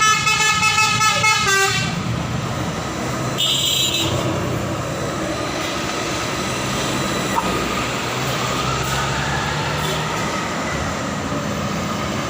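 Bus 'telolet basuri' musical horn playing a tune of stepped notes, cutting off about two seconds in. After it, a bus engine and road traffic run steadily, with a brief high-pitched sound about three and a half seconds in.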